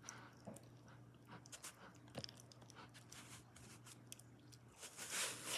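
Slime being stirred with a fork: faint sticky clicks and squelches, with a louder swish about five seconds in.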